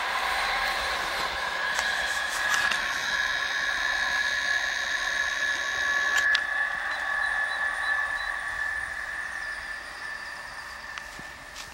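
Class 423 S-Bahn electric multiple unit running away down the line: a steady high whine over rolling noise that fades over the last few seconds.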